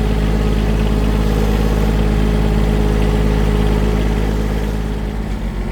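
Farm tractor engine running steadily under the operator, easing off slightly near the end.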